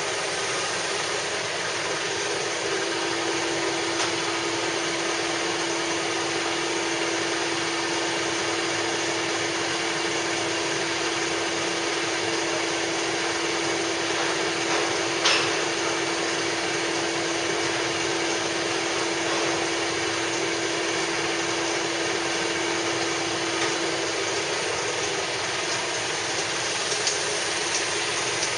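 Heavy machinery running steadily with a constant mechanical noise. A steady hum sets in about three seconds in and stops a few seconds before the end, and there is a single sharp click about halfway through.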